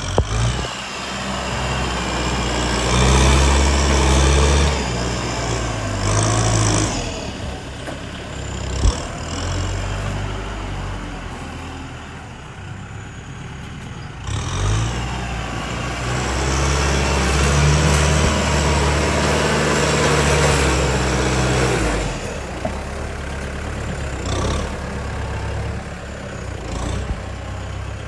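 Heavy diesel engines of a bulldozer and dump trucks at work, revving up under load twice for several seconds and dropping back toward idle between. There is a single sharp knock about nine seconds in.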